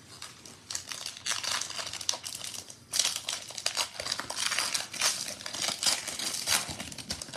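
Foil wrapper of a 2021 Panini Prizm football card pack crinkling as hands work it open, starting a little under a second in and going on in quick, irregular crackles with two brief pauses.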